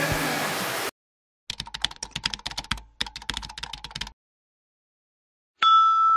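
Keyboard typing sound effect: a quick run of key clicks lasting about two and a half seconds, with a brief break in the middle. After a pause, a bright, steady chime starts near the end and is the loudest sound. Before the clicks, the background track cuts off about a second in.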